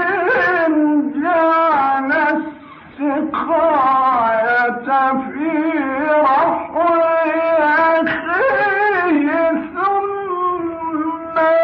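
Quran recitation in the melodic tajweed style: a single male voice chanting long, ornamented phrases, with a short breath pause about two and a half seconds in.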